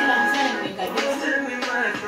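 Music from a music video playing on a television, picked up off the TV's speaker.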